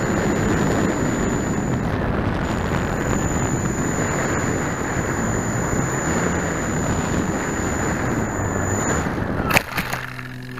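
Radio-controlled scale Wilga model plane in flight, heard from a camera mounted on it: steady rushing of wind and propeller noise with a thin high whine. Near the end a sharp knock as it comes down in the grass, and the rushing cuts off.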